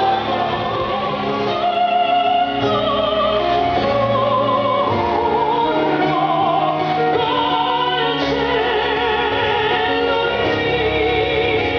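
Choir singing, with sustained notes in a strong vibrato.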